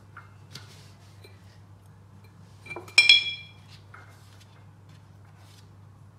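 A spoon clinks once against a dish about three seconds in and rings briefly, with a few faint taps and clicks around it. A steady low hum runs underneath.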